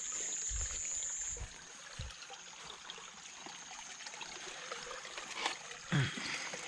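Water trickling steadily in a small pond, with a few light knocks and, about six seconds in, a louder splash as a plastic bottle trap is pushed under the water by hand.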